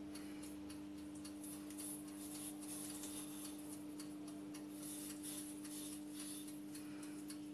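Chef's knife scoring the rind of a raw pork knuckle on a wooden cutting board: faint, irregular scratchy clicks as the blade cuts through the skin, over a steady low hum.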